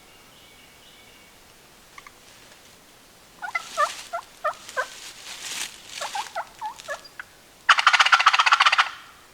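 A wild turkey gobbling loudly in one rapid rattling burst near the end, after a few seconds of short yelping notes that drop in pitch.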